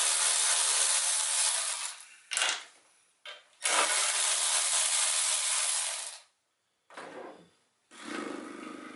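Cordless electric ratchet motor whirring in bursts as it spins a bolt: a run of about two seconds, two short blips, then another run of about two and a half seconds, with quieter handling sounds near the end.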